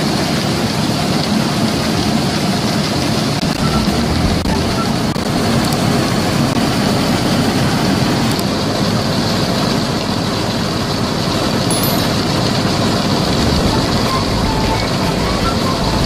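Steady din of a Punni tractor-driven combine harvester running, with threshed grain pouring from its unloading auger spout in a continuous hissing stream.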